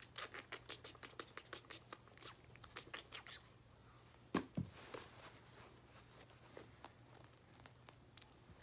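Faint, rapid light clicking and scratching of small objects being handled, several clicks a second, stopping after about three and a half seconds, then one sharper click a second later.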